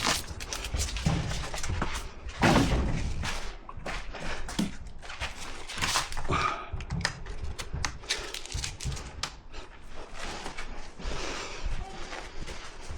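Irregular knocks, thuds and scraping from hand work with tools and building materials, with no steady machine running.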